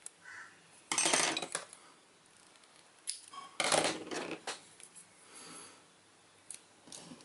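Tape pulled off its roll in two short rips, about a second in and again near four seconds, with a few light clicks of tools and parts handled on a cutting mat.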